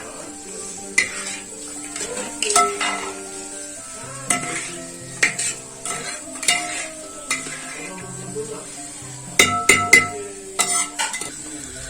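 Spoon stirring chicken masala in a karahi, clanking and scraping against the pan at irregular intervals, with a light sizzle and background music.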